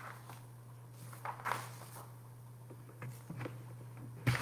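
Faint rustles and a few light clicks over a steady low hum, with a sharper knock near the end.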